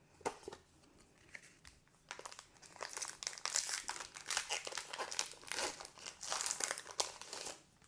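Pokémon TCG booster pack's foil wrapper crinkling and tearing as it is opened, a dense run of crackles that starts about two seconds in and stops shortly before the end.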